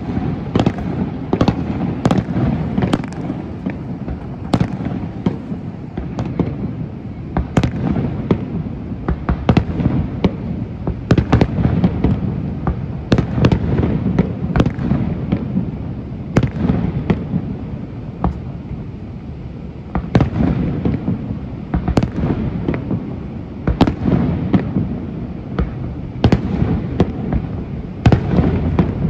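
Fireworks display: a steady, irregular run of sharp bangs and crackling bursts from aerial shells, several a second at times, over a continuous low rumble.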